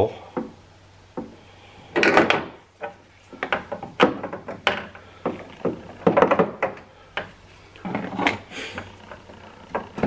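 Metal socket extension, a bolt stuck in its greased socket, tapping and clicking against the metal and plastic around the headlight mount as it is fished down toward the lower bolt hole: scattered, irregular knocks and clatters in several short clusters.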